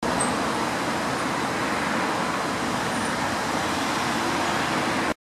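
Steady road traffic noise, holding an even level throughout.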